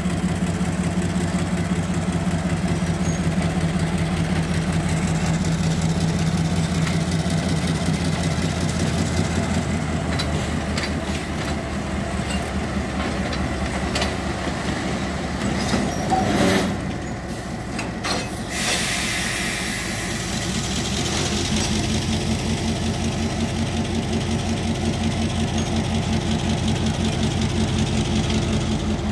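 The GM 12-567C two-stroke V12 diesel of an EMD-built Class M2 locomotive running at low throttle while shunting tank wagons, a steady pulsing drone. About sixteen seconds in there is a short louder noise, then a hiss, and later the engine note rises a little as it speeds up.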